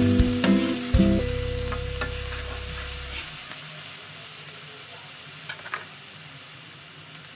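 Oil sizzling as garlic paste fries with sliced onions and green chillies in a kadai, with a metal spatula scraping and tapping the pan now and then. Background piano music plays at the start and fades out about three seconds in.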